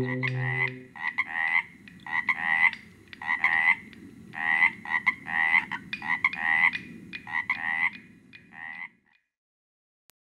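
A frog calling over and over: short croaks, often in pairs, about once a second, stopping shortly before the end.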